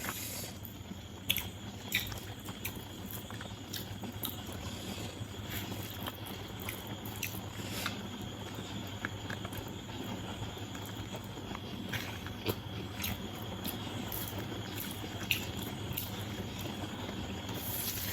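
A person eating biryani by hand: chewing, with scattered small mouth clicks and smacks, over a steady low background hum.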